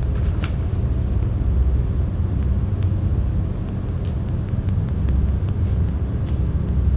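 Steady low rumble of outdoor background noise picked up by a doorbell camera's microphone, with a few faint clicks.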